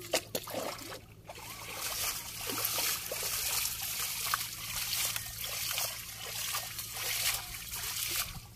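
Sharp splashes, then heavy, uneven splashing and sloshing as a cast net is hauled in through shallow paddy water with fish thrashing inside it.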